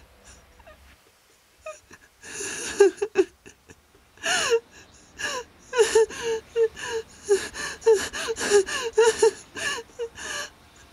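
A person sobbing: gasping breaths and short, high whimpering cries in quick succession, starting about two seconds in and going on until near the end.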